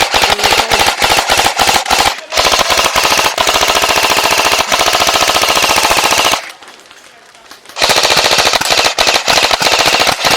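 Airsoft guns firing on full auto: long strings of rapid shots. The firing stops for about a second and a half a little past the middle, then starts again.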